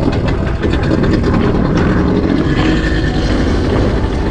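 A fishing boat's engine running steadily, a continuous low rumble.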